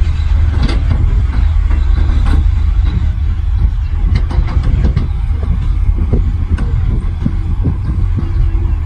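Heavy earthmoving machinery running: a steady, loud low diesel rumble with scattered clanks and knocks through it.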